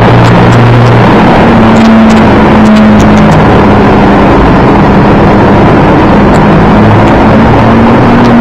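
A loud, steady engine runs under a heavy rush of noise, its low hum shifting pitch slightly in small steps.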